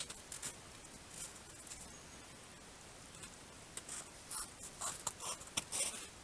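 Faint, irregular soft crunches and rustles of a grey wolf moving and nosing in the snow right by a trail camera, a few near the start and a quick cluster of them in the last two seconds.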